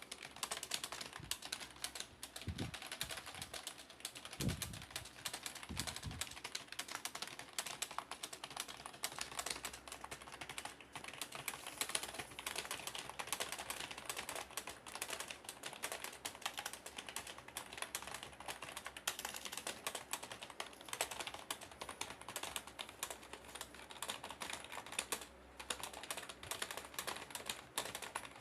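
Fast touch-typing on a computer keyboard at about 140 words per minute: a dense, unbroken stream of key clicks, with a few heavier low thuds in the first six seconds.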